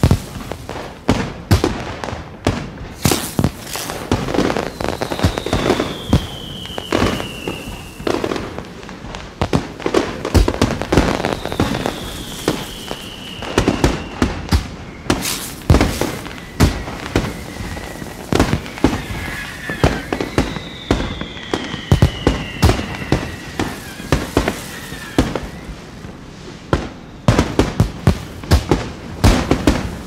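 Aerial fireworks display: rapid, irregular bangs of shells bursting, with crackle between them. A falling whistle sounds three times, each lasting a few seconds.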